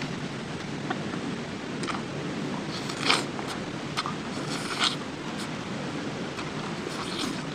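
Steady rushing outdoor noise like wind on the microphone, with two short scraping or rustling sounds about three and five seconds in.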